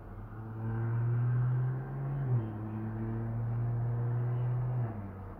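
A low steady hum held on one note, stepping slightly lower a little over two seconds in and stopping shortly before the end.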